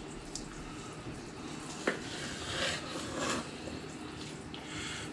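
Quiet kitchen handling sounds: a light tick early, a sharp click about two seconds in, then a soft hissing noise for about a second.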